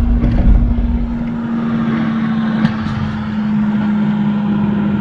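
John Deere 50G compact excavator running, heard from inside its cab as the upper house swings: a steady engine and hydraulic hum, with a deeper rumble that eases off after about a second and a single click near the middle.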